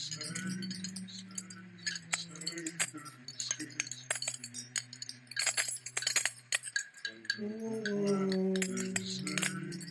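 Experimental electronic soundtrack: a low sustained drone under a scatter of sharp clicks, with a wavering, gliding pitched tone coming in about seven seconds in.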